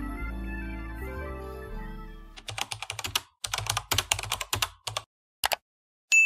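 Soft background music fades out, then computer keyboard typing clicks rapidly in several short runs for about three seconds. A single bright bell-like ding rings out right at the end.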